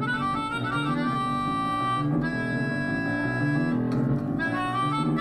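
Live keyboard and melodica music: sustained reedy chords with held melody notes over them, changing every second or so, played in two keys at once.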